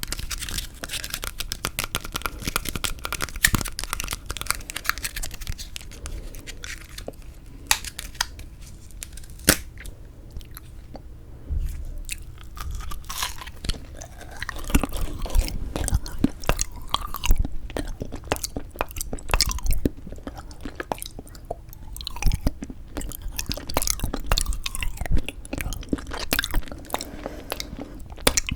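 Close-miked biting and chewing of a frozen yanggaeng (sweet red bean jelly) bar, with many sharp, crackly bites.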